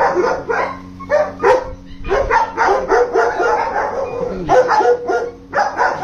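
Several German Shepherds barking over one another in a continuous run of short barks and yelps.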